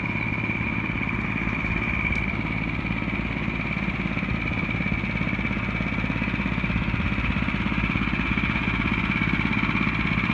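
Hammerhead Torpedo kids' go-kart engine, a small single-cylinder four-stroke, running steadily at low speed, with a steady high-pitched whine over the engine note.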